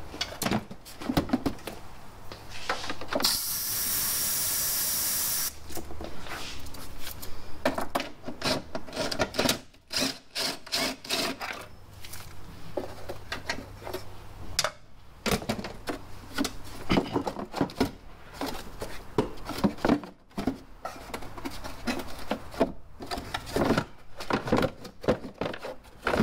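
Hand tools working on metal parts in a car's engine bay, with irregular clicks, knocks and rattles. A power tool runs steadily for about two seconds a few seconds in.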